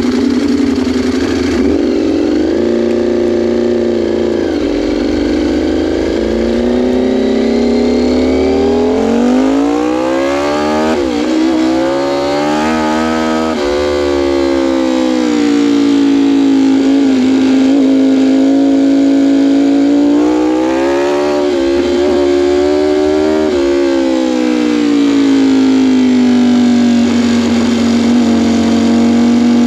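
Sport motorcycle engine running, its pitch climbing and falling smoothly several times as the revs rise and drop, holding steady for a while in the middle and again near the end.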